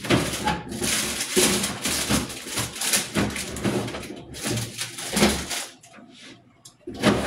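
Plastic produce bags crinkling and rustling as food is dug out of a refrigerator. It goes on for about five seconds, dies down, then there is a short loud rustle near the end.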